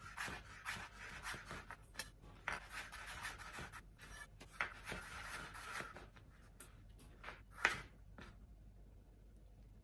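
Chef's knife slicing a peeled potato into thin fry sticks on a cutting board: a rapid run of cuts and knife clicks against the board for about six seconds. The cutting then gets quieter, with one louder knock near the end.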